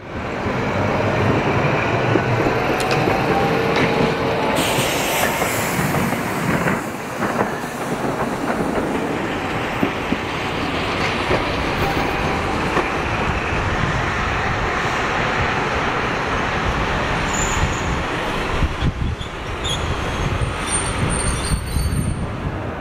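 Kumamoto City streetcar running on street track: a steady rumble of wheels on rail, with a brief thin wheel squeal a few seconds in.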